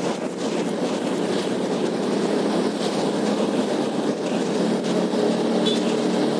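Small automatic motor scooter's engine running steadily at low riding speed, heard from the rider's seat with road and wind noise; a steadier engine hum comes through more clearly near the end.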